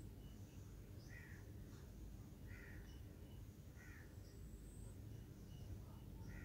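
Faint crow caws: four short calls spaced about a second or more apart, over a steady low background hum.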